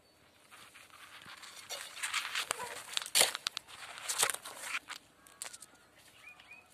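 Dry coconut palm fronds and fibrous leaf sheaths rustling and crackling as a hand pushes through them, with a few sharp snaps, loudest in the middle.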